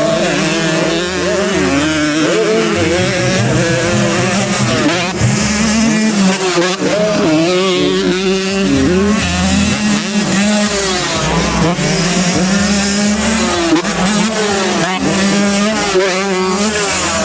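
Racing motorcycle engines at high revs, several at once, their pitch repeatedly rising and falling as the bikes accelerate and shift.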